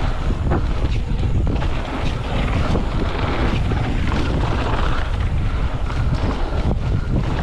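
Wind buffeting the microphone of an action camera on a mountain bike riding fast down a rough trail, with a steady low rumble and frequent short knocks and rattles from the bike over the ground.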